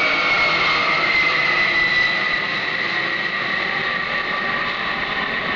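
Lockheed C-5 Galaxy's four turbofan engines running with a loud jet roar and whine. The whine slides slowly down in pitch over the first two seconds or so, then holds.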